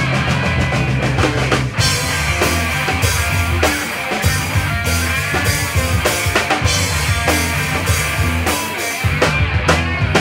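A rock band playing live through PA speakers: electric guitars, bass and drum kit. There is a rapid run of drum hits in the first two seconds.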